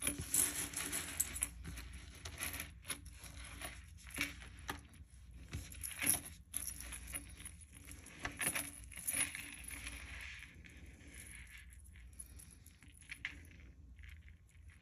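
Jewelry being handled: beads and metal chain clinking and rustling in short, irregular bursts, busier in the first half and sparser after about ten seconds.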